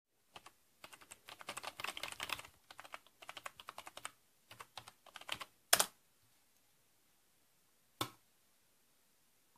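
Typing on a keyboard: quick runs of keystroke clicks for about five seconds, then a single sharper click, and one more about two seconds later.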